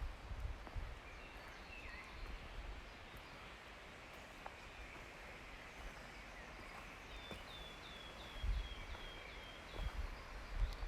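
Quiet forest ambience with a small songbird singing a quick run of about eight short, down-slurred high notes, and a few scattered chirps earlier, over a faint steady hiss. A few soft low thumps come near the end.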